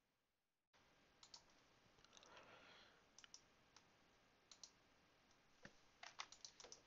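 Faint computer mouse clicks over quiet room tone: scattered single clicks, then a quick run of several clicks near the end.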